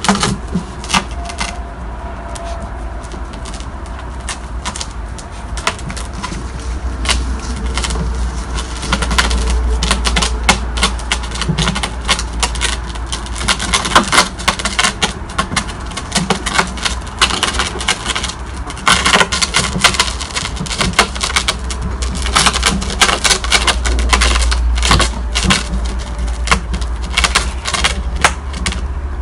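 Airedale terrier puppies' claws and paws clicking and tapping on paving slabs and knocking against a plastic tub: a dense, irregular run of small taps, busiest in the second half, over a steady low rumble.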